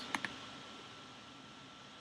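Faint steady hiss of room tone, with two brief soft clicks right at the start.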